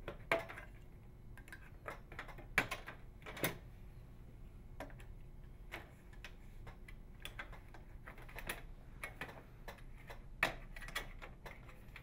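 Plastic inner panel trim of a microwave oven door being pried loose with a putty knife and small flathead screwdriver: its retaining clips click and snap free, with light tool-on-plastic ticks between. The clicks come irregularly, a few of them sharper snaps.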